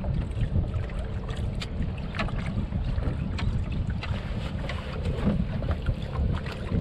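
Wind buffeting the microphone and water lapping against a small boat's hull, with scattered sharp clicks.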